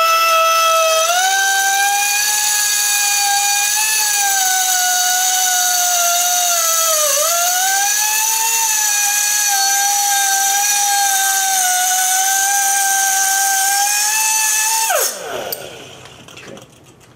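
Pneumatic cutoff tool with a small diamond cutoff disc whining at high speed while cutting a metal tube held in a vise. The pitch dips briefly about halfway through. Near the end the trigger is released and the whine falls away as the disc spins down.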